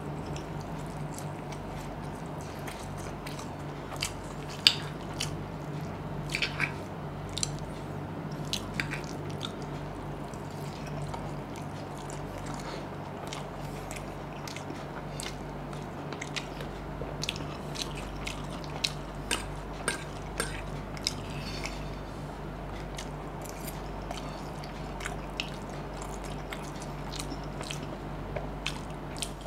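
Close-miked eating of chowmein noodles: chewing with many short wet clicks and smacks from the mouth, scattered irregularly, over a faint steady low hum.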